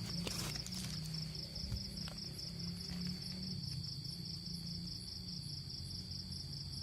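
Crickets chirping in a steady high-pitched pulse, about four chirps a second, over a steady low hum, with a few light handling clicks near the start.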